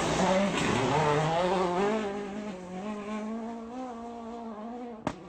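Rally car engine running, its pitch dipping about a second in and then holding steady as it grows fainter. A sharp click near the end.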